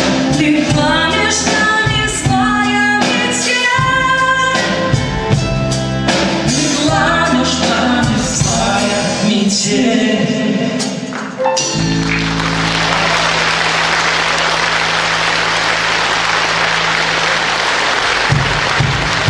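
Live pop-rock band with group vocals singing the final phrases of a song. About two-thirds in the singing stops and audience applause takes over, with a low chord held underneath, before the band's rhythm comes back near the end.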